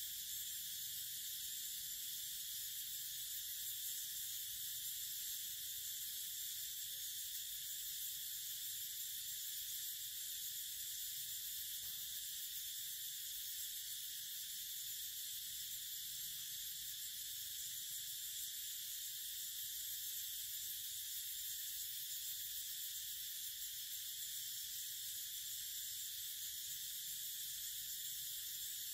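Steady high-pitched insect chorus, an unbroken shrill drone.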